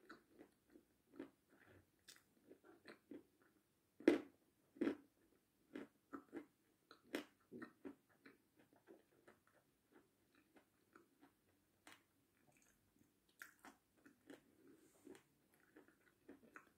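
Faint close-mouthed chewing of grapes: soft crunches and wet mouth clicks at an irregular pace. The loudest crunches come about four and five seconds in.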